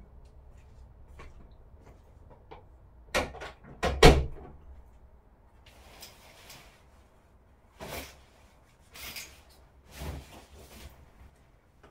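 A bathroom door pushed shut, with a knock and then a loud clunk about three to four seconds in. Several shorter scraping sounds follow as the shower curtain is pulled along its rail.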